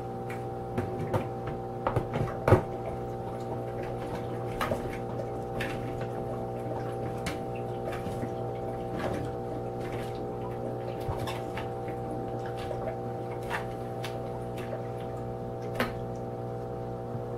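Sunbeam humidifier running with a steady motor hum while water gurgles and drips from its freshly seated tank into the base, with scattered small plops and clicks and one sharper knock about two and a half seconds in.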